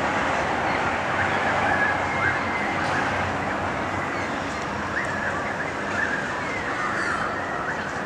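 A crowd of birds calling and chattering at once, with many short chirps and squawks rising out of a steady din.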